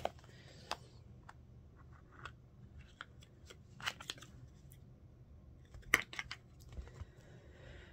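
Hard plastic mystery ornament case being pried open by hand: scattered small plastic clicks and ticks, a cluster about four seconds in and a sharper click about six seconds in as the case comes apart.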